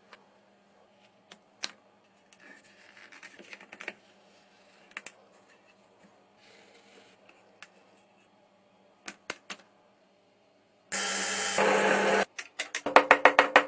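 Scattered light clicks, taps and short scrapes from handling small parts, then about eleven seconds in a loud motor-driven tool starts with a steady hum and breaks into a fast rattle near the end.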